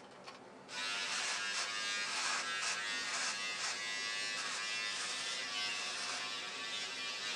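Remington electric beard trimmer switching on about a second in, then buzzing steadily as it is run up the neck through beard hair.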